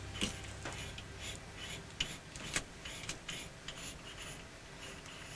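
Rear plug being unscrewed from the air reservoir tube of an EDgun Veles air rifle: a faint run of short clicks and rasps from the threads, a few each second, with a sharper click about two and a half seconds in.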